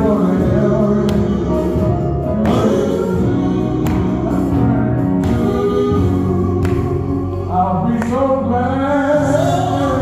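Live gospel quartet music: male voices singing over guitar and a steady bass accompaniment, with sung lines rising and falling most strongly near the end.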